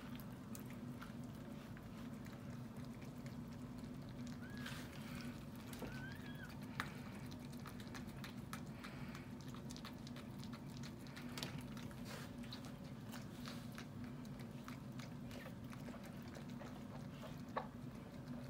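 Miniature schnauzer tending her newborn puppies: soft wet licking and smacking clicks, with a couple of brief, faint, high puppy squeaks about five seconds in, over a steady low hum.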